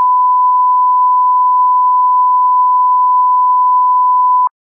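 Broadcast test-card tone: a single steady 1 kHz beep held with no change, then cutting off suddenly near the end. It is the sign of a lost signal, with the feed replaced by a test card.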